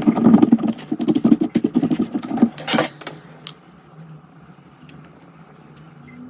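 Cracked back glass of an iPhone 13 Pro Max being scraped and prised off the frame with a metal tool: dense scratching and clicking of glass fragments for about three seconds, then only a faint steady hum.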